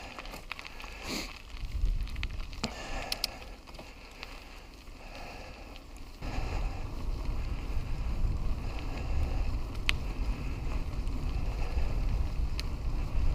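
Wind buffeting a helmet-mounted action camera's microphone while a mountain bike is ridden, a low rumble with scattered clicks and ticks. The rumble gets louder and steadier about six seconds in.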